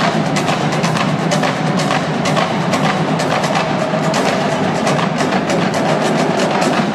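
Marching drumline playing a steady cadence of sharp strokes on snare drums and bass drums.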